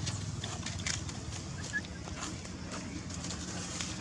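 Dry leaf litter rustling and crackling in scattered short clicks under walking macaques, with one brief high chirp just under two seconds in.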